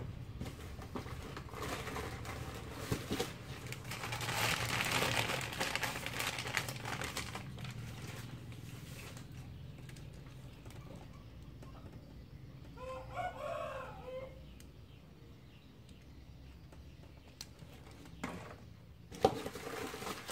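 A rooster crows once, about two-thirds of the way through. Around it are handling noises from plastic toys being picked up and set down on a wooden table, with a louder rustling stretch early on and a sharp knock near the end.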